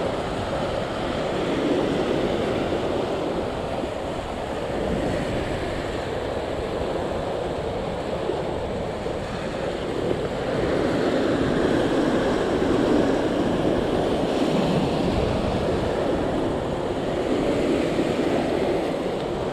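Sea swell surging and washing over the rocks just below, a steady rushing that rises and falls in surges, with wind on the microphone.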